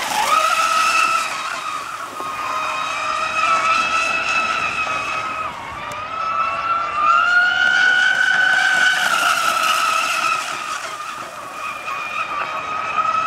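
Carbon Decepticon RC racing catamaran's motor whining at high speed, its pitch dipping and climbing as it runs laps of the lake, loudest about a second in and again around seven to nine seconds in.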